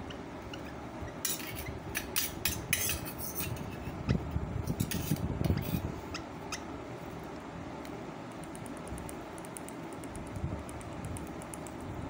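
A steel spoon clinking and tapping against a steel bowl of hand-feeding formula as lovebird chicks are spoon-fed, in a burst of clinks between about one and six seconds in. Faint, fast, high ticking follows near the end.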